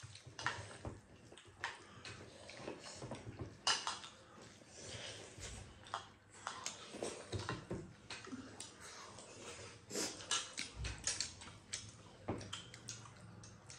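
Several people eating rice and curry with their fingers: chewing and mouth smacking, with light clicks of fingers and food against china plates in short, irregular bursts.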